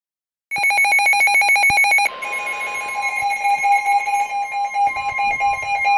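Emergency weather alert tones from a NOAA Weather Radio broadcast. A loud, rapidly pulsing electronic beeping starts about half a second in. About two seconds in, the steady single-pitch weather-radio warning tone joins it, and the pulsing carries on more softly above that tone.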